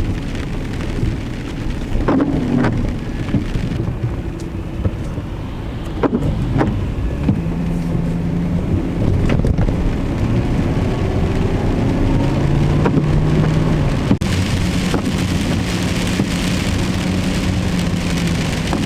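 Steady hiss of falling or rushing water, broken by a handful of sharp drips or knocks, with a low hum that changes pitch a few times in the second half.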